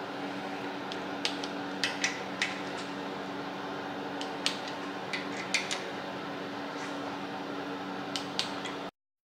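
A click-type torque wrench makes sharp, scattered metallic clicks as it ratchets on the camshaft bearing cap bolts of a Toyota 4A-GE cylinder head, tightening them in sequence to 108 inch-pounds. A steady hum runs underneath, and the sound cuts off abruptly near the end.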